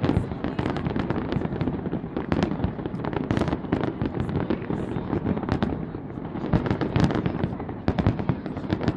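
Fireworks display going off: a dense, continuous run of sharp bangs and crackles, several a second.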